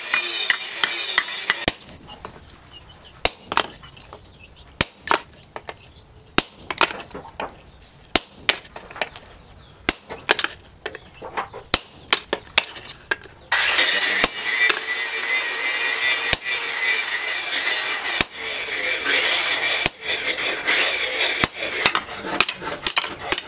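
Hand hammer striking steel on a small anvil: irregular metallic clinks and taps as a blade cut from a disc plough is chiselled and then forged hot. About halfway through, a loud steady rushing noise comes in and runs under the strikes.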